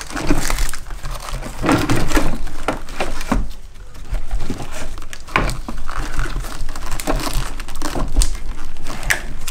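Irregular rustling, scraping and knocking as a vacuum brake booster is worked loose and pulled out of a Jeep Wrangler JK's engine bay, rubbing against hoses and the wiring harness.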